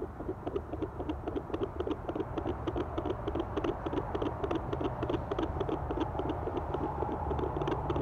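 Sonoline B fetal Doppler's speaker giving out a fast, even, rhythmic pulsing: a puppy's heartbeat picked up through a pregnant dog's belly.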